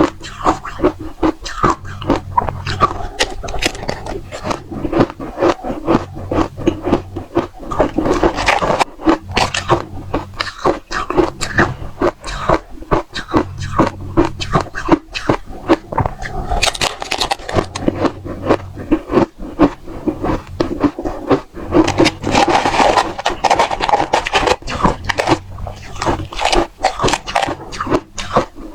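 Dry-textured frozen matcha ice being bitten and crunched between teeth, in a dense, continuous run of sharp cracks and crunches.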